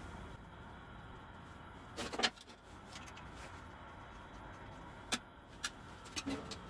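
Light metal clinks and knocks from a model steam locomotive being dismantled by hand, as a box spanner works on the fixings and the sheet-metal side tank is lifted off. The loudest is a short cluster of knocks about two seconds in, followed by a few single sharp clicks and a small cluster near the end.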